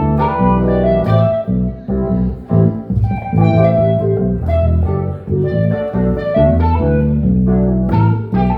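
Instrumental jam: guitar playing a run of quick, separate notes over a moving bass line.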